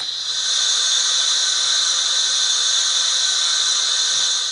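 Steam hiss sound effect from the DCC sound decoder in an O gauge GWR 0-4-2 tank locomotive model, played through its small onboard speaker. A steady hiss that starts just after the beginning and stops at the end.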